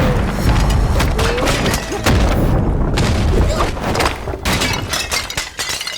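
Fight sound effects: a dense run of crashes, thuds and smashing impacts over a low rumbling boom. The impacts thin out over the last second or so.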